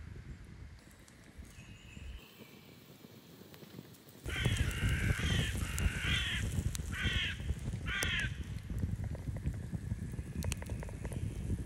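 A crow cawing four times in quick succession, starting about four seconds in, over a steady low rumbling background.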